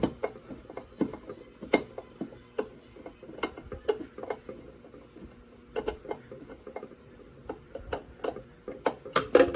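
Screwdriver turning a screw back into a Fire-Lite BG-6 pull station as it is reset: a run of small, irregular clicks and ticks, with louder clicks near the end.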